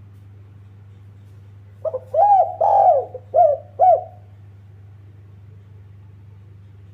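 Spotted dove cooing one phrase of about five arching coos, starting about two seconds in and lasting about two seconds. A steady low hum runs underneath.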